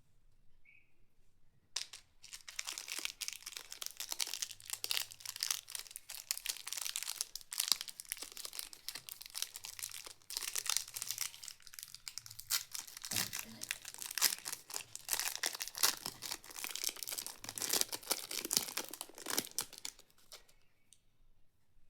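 Chocolate bar wrapper being crinkled and torn open by hand: a dense run of crackling that starts about two seconds in and stops about two seconds before the end.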